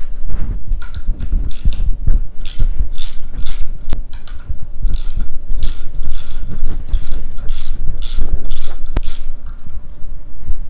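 Ratcheting driver with an 8 mm socket clicking in steady strokes, about two a second, as the stock clutch lever clamp bolts are loosened.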